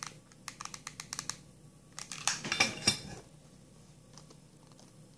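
Handling noises from hot-glue crafting with a stiff, starched satin flower: a run of small sharp clicks, then a louder cluster of knocks and crinkles about two seconds in as the glue gun is put down and the petals are handled.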